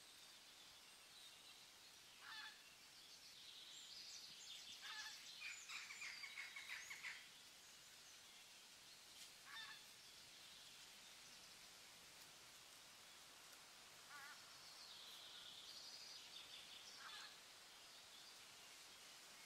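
Faint bird calls over a soft background hiss: short calls about two seconds in, a longer rapid chattering run from about five to seven seconds, then scattered calls and a short sequence near the end.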